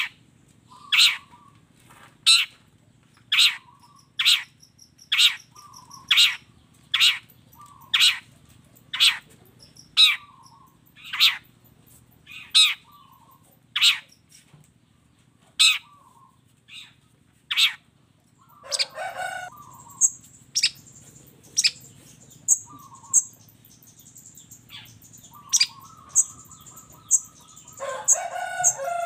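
Long-tailed shrike (cendet) song recording: sharp, loud call notes repeated about once a second, each with a short lower note after it. About two-thirds in, it turns to rapid high-pitched chattering, broken by two lower rasping bursts.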